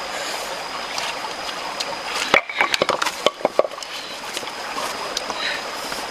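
Steady rush of a shallow rocky stream, with a quick cluster of sharp clicks and knocks a little over halfway through.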